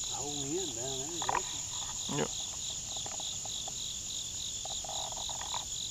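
Steady chorus of field insects: a continuous high-pitched buzz with a second trill pulsing about five times a second. Faint distant voices can be heard in the first second or so.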